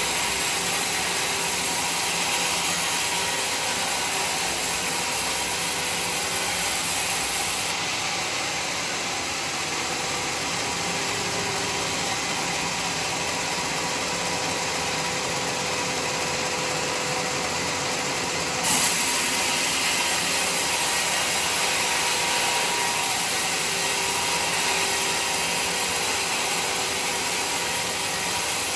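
Band sawmill running steadily as its blade cuts through a log, a dense mechanical hiss with faint steady tones. The high hiss drops away about 8 seconds in and returns with a short jolt about 19 seconds in.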